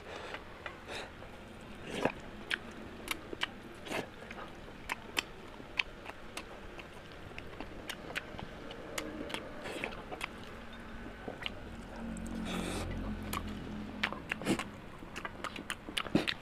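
Close-up chewing and biting of curry and rice: wet mouth clicks and smacks come irregularly, several a second. A low hum with a steady tone rises for a couple of seconds past the middle.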